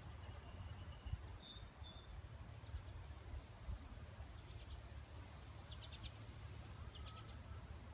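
Quiet garden ambience: a steady low rumble with faint birdsong, a few thin high whistled notes in the first couple of seconds and short rapid chirping trills near the end.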